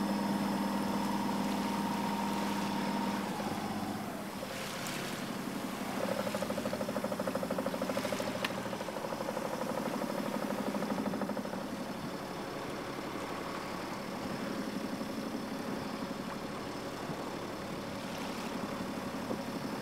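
Boat engine running steadily. It drops in pitch about three to four seconds in as it slows, and its tone changes again around six seconds in.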